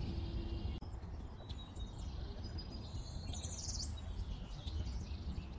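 Background ambience of birds chirping now and then over a steady low rumble, with a brighter run of chirps about three and a half seconds in.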